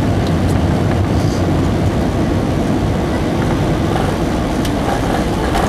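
Loud, steady rumble inside the cabin of an Airbus A320-232 airliner, with a few faint rattles.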